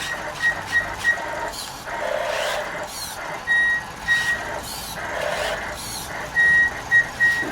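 An RC truck's reversing beeper: short, high beeps on one tone, repeating about twice a second, in several runs. There are two bursts of hissing noise between the runs.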